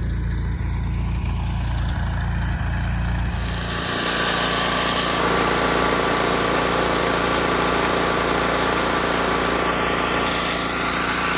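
Portable generator's engine running steadily. About four seconds in, the low hum drops away and the running noise becomes fuller and slightly louder.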